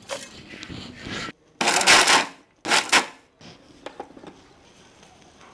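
A steel cup scooping and scraping coarse beetroot malt granules in an iron kadai, the grains rattling against the metal. There are two louder bursts of noise about a second and a half and three seconds in.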